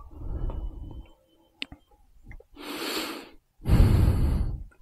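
Two heavy breaths close to the microphone, about three and four seconds in, the second louder, with a light click before them; no engine running.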